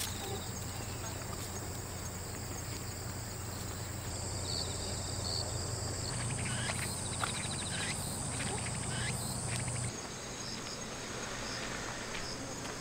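Cicadas and other summer insects shrilling steadily at a high pitch, over a low steady hum, with a few short chirps; the insect drone changes abruptly about four, six and ten seconds in.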